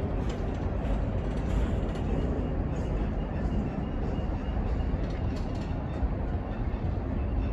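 Coal hopper cars of a BNSF coal train rolling past: a steady rumble of steel wheels on the rails, with a few faint clicks.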